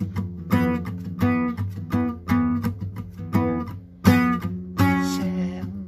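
Acoustic guitar strummed in a steady rhythm, about one to two strums a second. The last chord, near the end, rings out and fades.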